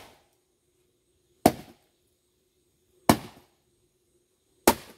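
Three evenly spaced chops of a blade into small rotten sticks of firewood, about one and a half seconds apart, each a sharp crack that dies away quickly.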